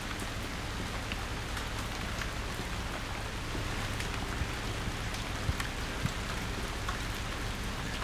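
Steady rain falling, with scattered individual drops ticking through it over a low rumble.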